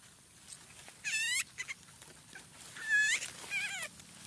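High-pitched animal calls: a quick fluttering call about a second in, then a rising call followed by a wavering one around three seconds in.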